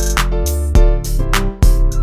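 Background music with a steady beat, drums and a guitar.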